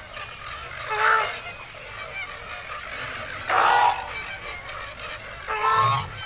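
Wetland sound effects: three short honking bird calls about two seconds apart, over a steady background with a high, regular chirping a few times a second.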